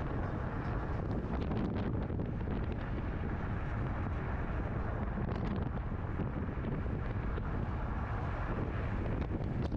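Car driving at speed: steady engine and road noise with wind buffeting the microphone, and a few faint clicks or rattles now and then.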